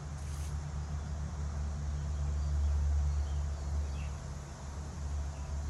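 Steady low hum, a little louder about halfway through.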